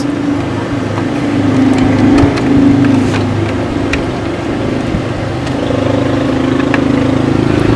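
Steady low mechanical drone, like an idling engine, with a few faint clicks as the shade's plastic tabs are closed on the window frame.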